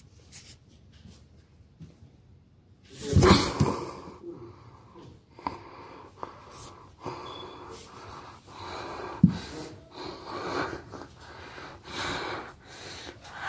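A person breathing heavily and noisily close to the microphone, in irregular gusts, the loudest about three seconds in, with one sharp knock about nine seconds in.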